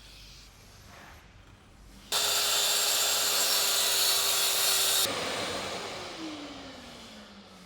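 Handheld electric woodworking power tool switched on about two seconds in and running steadily at full speed with a high whine for about three seconds. It is then switched off and winds down, its pitch falling steadily.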